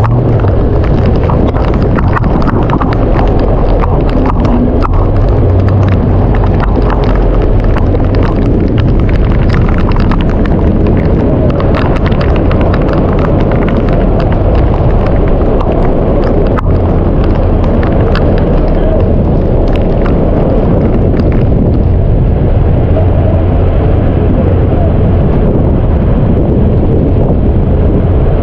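Heavy rainstorm with strong wind: a steady rumble of wind buffeting the microphone under a dense, irregular patter of raindrops striking.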